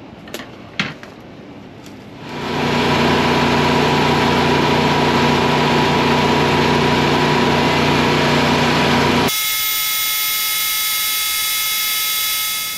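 Metal lathe turning down an axle spindle bushing. After a couple of light clicks it starts about two seconds in and runs steadily with a hum and a hiss. About three-quarters of the way through the sound changes abruptly to a higher-pitched steady whine as the cut goes on.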